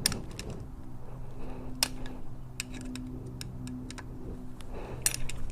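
Scattered light clicks and taps of small metal parts and hand tools being handled while fitting a motorcycle gear shift lever and rearset, at irregular spacing with a small cluster near the end, over a steady low hum.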